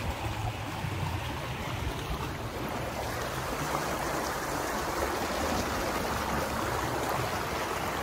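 Shallow creek water rushing over rocks in small rapids, a steady rush that grows a little louder partway through.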